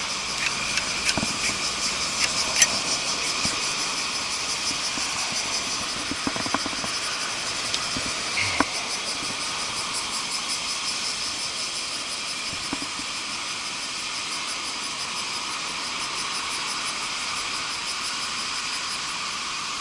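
Steady shrill chorus of summer insects with a fine, fast pulsing. A few short clicks and knocks sound over it, the clearest about two and a half and eight and a half seconds in.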